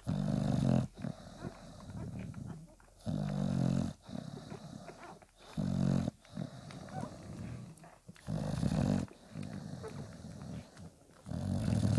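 English Bulldog breathing noisily, with five loud, snore-like breaths about every three seconds. Between them come softer, irregular snuffling and suckling sounds from the nursing newborn puppies.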